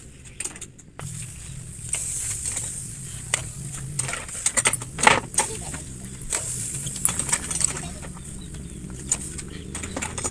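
Irregular hard clicks and knocks of snail shells being handled and shifted on a charcoal grill, over a steady high hiss.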